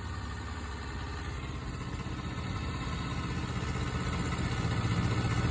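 Honda CBR250RR (MC22) 250 cc inline-four motorcycle engine idling at a steady speed, growing gradually louder. The owner questions whether it is making an abnormal noise.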